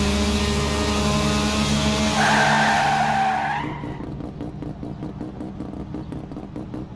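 Race car engine running steadily at high revs, with a tyre squeal about two seconds in. About three and a half seconds in it drops away to a quieter sound with even ticks, about four a second.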